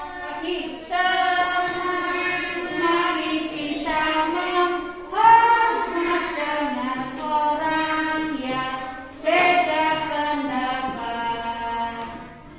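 Singing in a high voice: a slow song of long held notes in short phrases.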